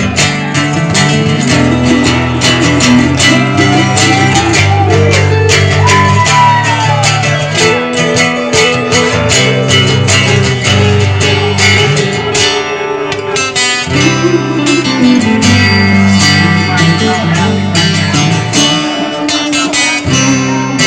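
Instrumental break of a country-rock song: strummed guitar over a steady beat, with a lead line that glides between notes.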